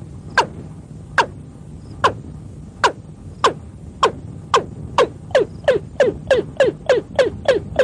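Watercock (cúm núm) dawn call: a series of sharp notes, each sweeping steeply down in pitch, about one a second at first and quickening to about three a second, over a low steady hum.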